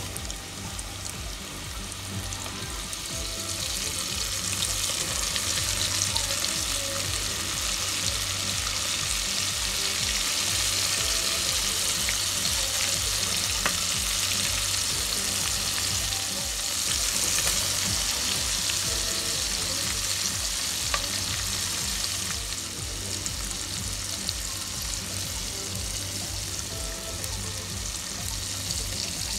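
Flour-coated chicken skin deep-frying in a pot of hot oil: a dense, steady sizzle of bubbling oil that builds over the first few seconds after the pieces go in, then holds.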